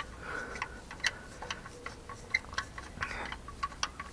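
Socket wrench clicking in irregular sharp metallic ticks, a few a second, as a loosened starter motor mounting bolt is wound out.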